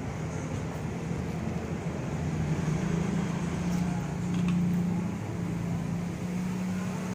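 Steady low mechanical hum over a noisy background, the hum growing stronger about three seconds in, with a few faint ticks.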